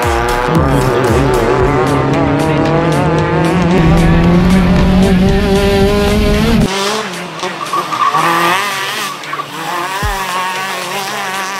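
Engine of a Maruti Suzuki Swift autocross car revving hard, its note climbing and held high for several seconds. About two-thirds of the way in the sound cuts abruptly to a thinner engine note that rises and falls as the car slides through a dirt corner.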